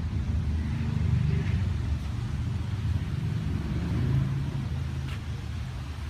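A car engine running at low revs, a steady low rumble that swells slightly a little after a second in and again about four seconds in.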